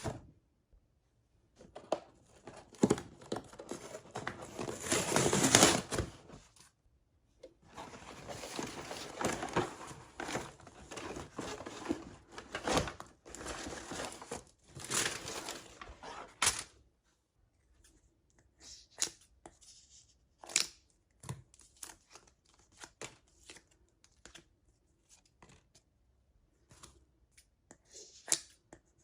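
Packaging being torn open and crinkled by hand in two long stretches, then scattered light handling taps and rustles.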